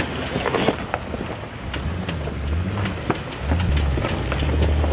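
Low engine rumble of a Jeep Wrangler crawling slowly over sandy mounds, swelling about two seconds in and again near the end, with scattered crackles and clicks.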